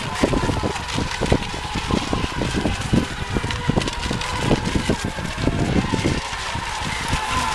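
Electric RC racing boats running on the course, their motors giving a steady high whine. Many irregular low thumps sound over it.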